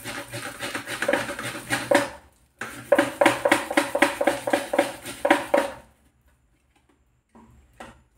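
Ripe palmyra palm fruit pulp being scraped on a flat metal grater, in quick rhythmic strokes about four a second. Two runs of scraping with a short break, stopping about six seconds in, then a few light knocks.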